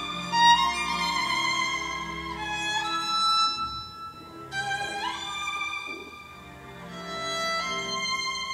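Recorded solo violin playing a slow melody of sustained notes, with a rising slide to a high note about five seconds in, over soft low accompaniment, played back through vintage tube amplifiers and large horn loudspeakers.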